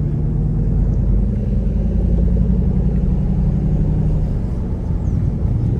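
Chevrolet Camaro SS's 6.2-litre V8 running at low revs while driving slowly, a steady low note that eases off about four seconds in.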